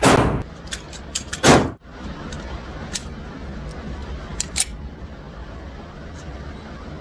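Two pistol shots at an indoor shooting range, about a second and a half apart, each with a short echo, followed by a few light metallic clicks over the range's steady low background noise.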